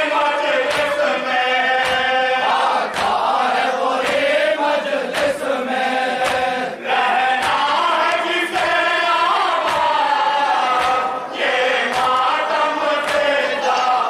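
A group of men chanting a noha in unison, led by one voice through a microphone, with sharp slaps in a steady beat about every two-thirds of a second: matam, hands striking chests in time with the lament.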